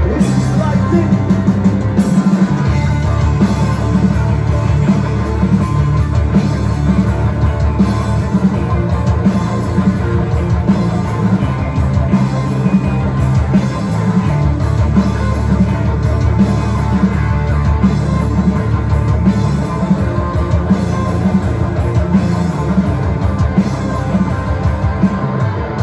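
Live heavy rock band playing an instrumental passage without vocals: distorted electric guitars, bass guitar and a drum kit keeping a steady beat through the club PA.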